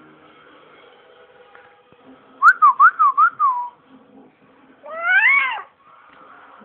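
Baby squealing: a quick string of about five high, warbling squeaks, then about a second later one longer squeal that rises and falls in pitch.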